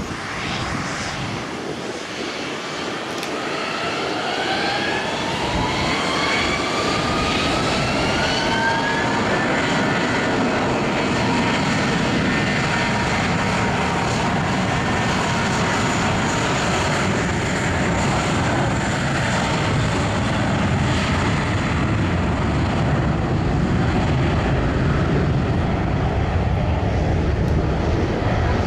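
Airbus A320's IAE V2500 turbofans spooling up for the takeoff roll: a rising whine over the first several seconds that levels off into steady jet engine noise, growing louder as the airliner accelerates down the runway.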